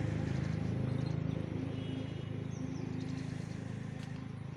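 A motor vehicle engine idling with a steady, rapid low pulse, easing off slightly toward the end, with a few faint bird chirps.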